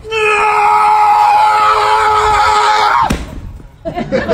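Cat giving a long, steady, drawn-out warning yowl, which slides quickly down in pitch and breaks off about three seconds in. Near the end a warbling, wavering voice-like sound begins.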